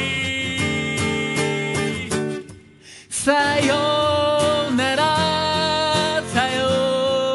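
Acoustic guitar strummed under a man's singing voice. The music stops almost completely for about a second, roughly two and a half seconds in. Then the strumming comes back with long, wavering sung notes.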